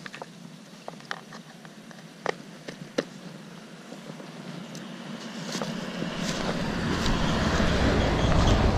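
A motor vehicle driving past on the road: a rumble that swells from about halfway through to its loudest near the end. A few light taps and clicks in the first three seconds.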